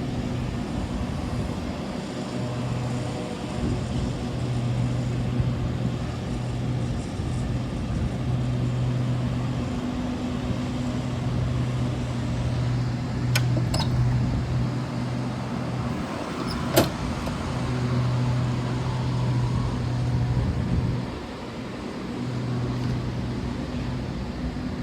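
Stationary train idling with a steady low hum that cuts out and back in several times, over a low rumble. There are a few light clicks, and one sharp knock about seventeen seconds in.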